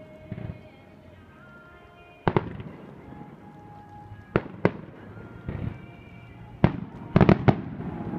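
Fireworks shells bursting overhead: about seven sharp bangs at irregular intervals, each with a short echoing tail, ending in a quick run of three bangs near the end.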